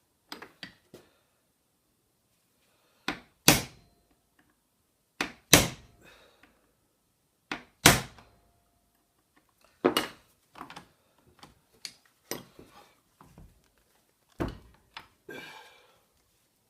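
Sharp knocks on a lathe apron while working a stuck gear loose. The loudest come in three pairs, each pair about half a second apart, followed by lighter single knocks and a short rattle near the end.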